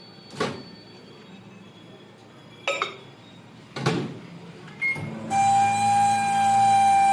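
Microwave oven handled with a few knocks and clicks and a short beep, then switched on: it runs with a steady hum and a constant whine from its fan motor, the noise the video sets out to fix.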